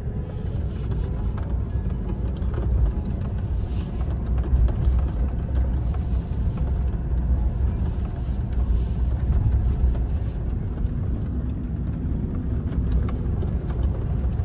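Vehicle driving slowly over a rough gravel road, heard from inside the cab: a steady low rumble of tyres and suspension, with scattered knocks and rattles from the bumps.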